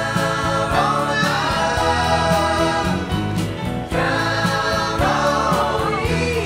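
Background music: a song with singing over instrumental backing.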